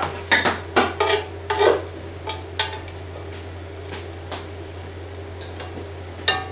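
Spring onions sizzling in oil in a cast-iron Dutch oven, stirred with a utensil that scrapes and knocks against the pot several times in the first few seconds and now and then afterwards. A steady low hum from the fireplace insert's fan runs underneath.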